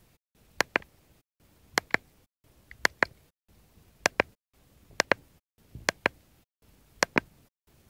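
Sharp clicks in pairs, about one pair a second, with the sound cutting out completely for a moment between pairs.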